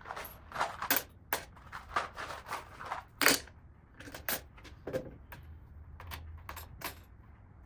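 Bolts, washers and nuts clicking and knocking against the metal caster plates and cart frame as tool-cart casters are fitted by hand: a run of irregular sharp clicks, loudest about a second and three seconds in.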